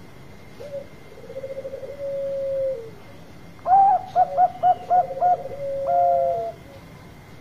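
Zebra dove cooing its song: a short note, then a quick run of soft coos leading into a long held coo that drops at the end. About halfway through, a louder, higher phrase of about six short coos and a held note overlaps a lower run of coos.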